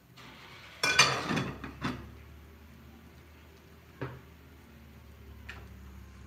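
Aluminium pot lid clattering as it is set onto a pot, the loudest clang about a second in and a second knock just before two seconds. A lighter single metallic knock follows about four seconds in.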